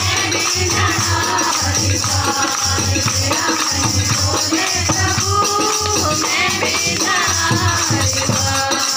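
Women singing a song together with hand clapping, a steady drum beat about twice a second, and rattling, jingling percussion.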